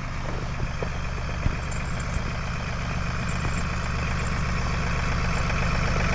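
John Deere tractor engine running steadily, growing gradually louder, with a sharp knock about one and a half seconds in.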